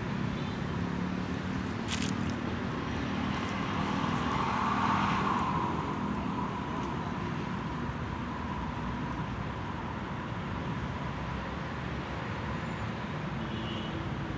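Steady outdoor noise with a motor's hum that swells and fades, loudest about five seconds in, and a brief click near the start.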